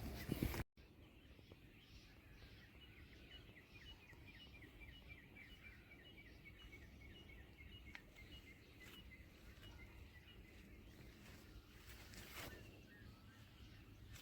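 A bird faintly calling a long, even series of short high chirps, about four a second, for several seconds. A brief louder noise at the very start cuts off abruptly.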